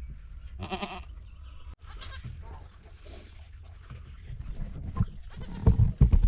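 Nanny goat in labour giving one short, wavering bleat about half a second in, with light rustling afterwards. Several heavy low thumps near the end.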